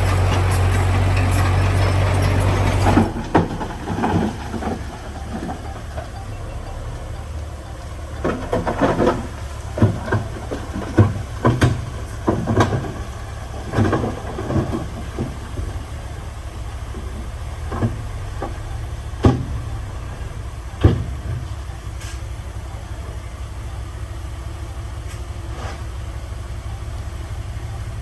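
Heavy construction machinery's diesel engine running, loud for the first three seconds and then dropping to a lower, steadier idle. Over the next eighteen seconds or so come a scattered series of sharp metallic clanks and knocks, and then the engine idles on alone.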